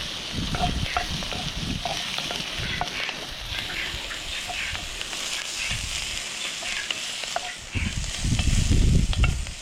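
Onion and capsicum frying in oil in a cast iron pot over campfire coals: a steady sizzle with scattered small pops and crackles. A low rumble on the microphone comes in about eight seconds in.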